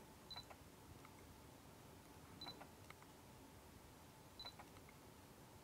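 Canon EOS R's autofocus-confirmation beep: three short high beeps about two seconds apart, each followed by a few faint clicks. The camera is in silent shutter mode, so no shutter sound is heard.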